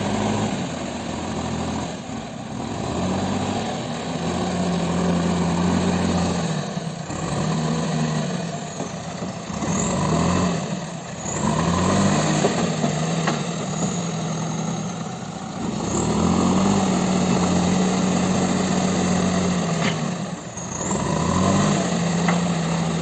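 JCB 3DX backhoe loader's diesel engine running under working load, revving up and dropping back again every few seconds.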